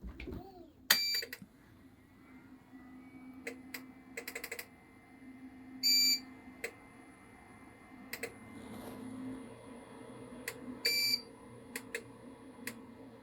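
Eaton 5E Gen2 UPS giving three short beeps about five seconds apart. Sharp relay clicks come between the beeps, some singly and some in quick runs, over a faint steady low hum.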